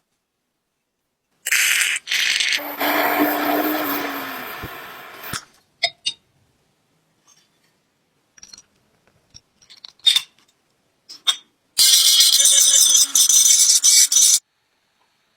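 A handheld power tool runs in two bursts with scattered clicks and knocks between them. The first burst dies away over a couple of seconds; the second is harsher and stops suddenly.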